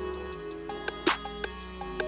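Background music: a melodic instrumental line over a steady beat, with a sharp drum hit about a second in.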